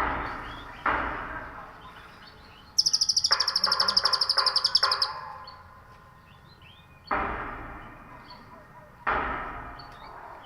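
A cililin bird singing a rapid, high trill for about two seconds, around three seconds in. Loud, sharp sounds that fade away come at the start, about a second in, and twice near the end.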